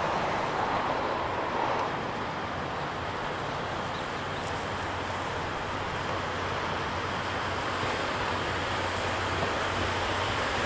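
Steam locomotive C58363, a JNR Class C58, approaching with its train: a steady rumble and hiss without distinct exhaust beats, a little louder near the end as it draws close.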